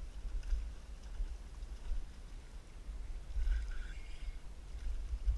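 Wind buffeting the camera microphone: a low, uneven rumble that swells and dips.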